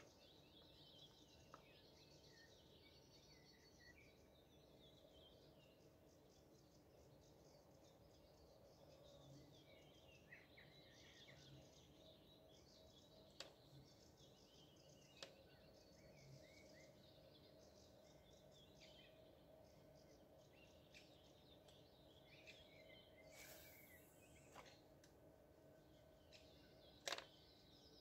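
Faint birdsong: small birds chirping and trilling on and off throughout, with a few sharp clicks, the loudest about a second before the end, and a short hiss a few seconds before that.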